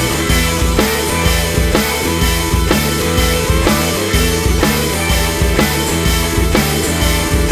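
Background music with a steady drum beat, rock-style instrumental.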